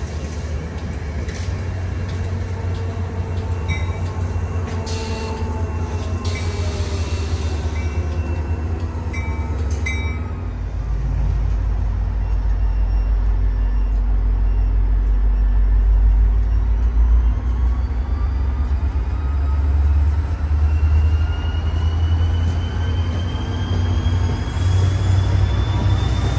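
Train running past with a heavy, steady low rumble that deepens about ten seconds in. A whine rises in pitch through the second half.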